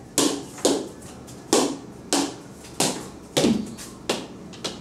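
A small ball hit back and forth between plastic beach paddles: about eight sharp hits, each half a second to a second apart, in a rally that keeps going.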